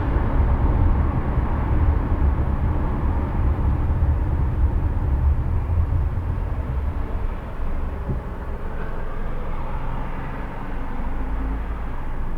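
Car driving through city streets: a steady low rumble of road and engine noise that eases slightly about seven seconds in, with a brief knock about eight seconds in.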